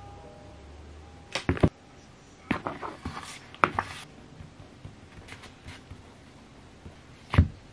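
Pen scratching across paper in a planner, with a few sharp clicks and knocks from things handled on a desk; the loudest knock comes near the end.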